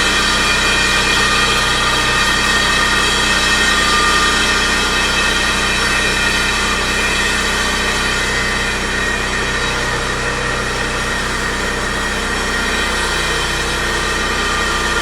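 Engine-driven construction machinery running steadily at a sidewalk repair, a constant engine hum with a steady whine over it and no separate knocks or blows.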